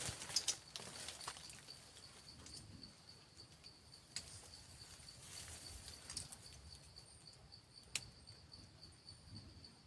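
An insect chirping faintly in a steady, fast, even pulse, with a few sharp clicks at the start, about four seconds in and about eight seconds in.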